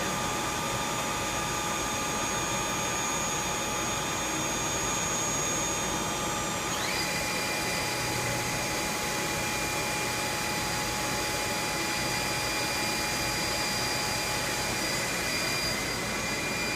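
CNC machining centre running with a steady whine over a hiss of machine noise; about seven seconds in, the whine glides quickly up to a higher pitch and holds there.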